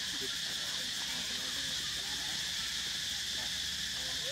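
Steady, high-pitched drone of insects.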